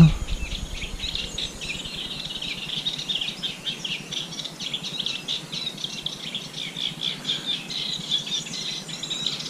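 Songbirds singing and chirping continuously, many short high notes overlapping without a break.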